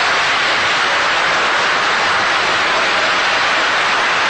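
A large seated assembly applauding, a steady dense clapping without a break.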